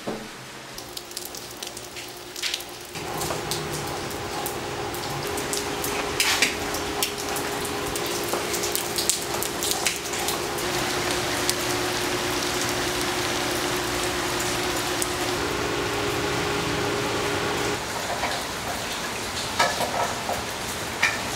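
Steady rain falling, with scattered drips splattering on a hard surface. A steady low hum of several tones comes in about 3 s in and drops away near the end.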